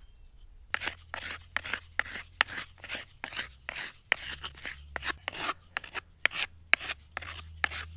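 The end of a wooden bow-drill spindle scraped back and forth against a rock, grinding its tip to a point. It sounds as quick rasping strokes, about three a second, starting just under a second in.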